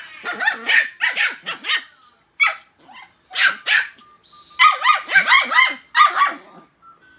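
Two-month-old puppies yapping and barking in repeated bursts of short, high-pitched yips as they play-fight.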